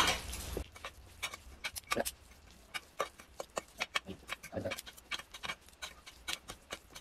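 Metal forks and spoons clinking and scraping lightly as saucy instant noodles are stirred and tossed, a scattering of small irregular clicks with a duller knock about halfway through.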